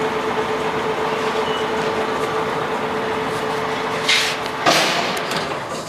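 LeBlond Regal engine lathe running with the threading feed engaged and the half nut closed, its gearbox and lead screw driving the carriage: a steady mechanical running noise with a held hum. A little over four seconds in, the hum stops and there is a louder burst of noisy clatter.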